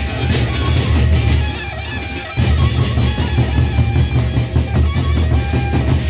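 Gendang belek ensemble playing: deep, continuous beats from the large double-headed drums under cymbal strokes and held melodic lines. The low drums drop out for a moment a little after two seconds in, then come back in.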